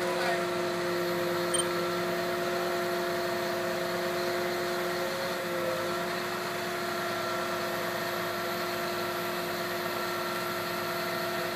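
An engine idling steadily, a continuous hum carrying several steady whining tones.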